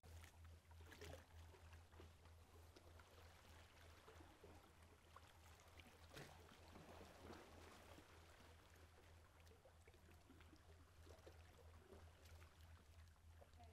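Near silence: faint lapping of calm sea water against the shore rocks, under a steady low hum.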